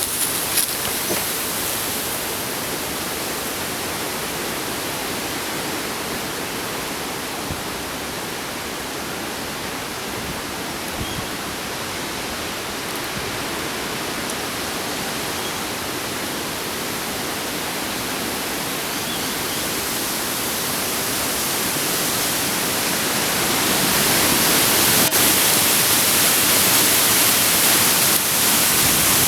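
Strong gusty wind blowing through a small tree's leaves and across the microphone, a steady rushing noise that grows louder about two-thirds of the way in.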